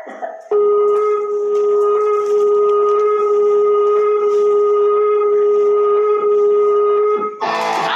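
A toy horn blown in one long, steady, unwavering note for about seven seconds, cut off sharply; electric guitar music starts right after.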